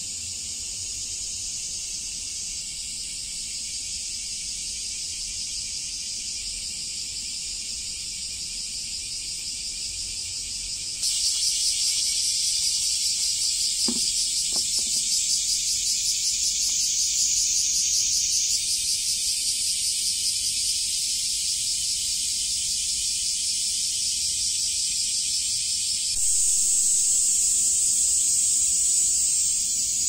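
Cicadas singing in a steady, high-pitched buzzing chorus. A louder, nearer one joins about eleven seconds in, and the chorus swells again near the end.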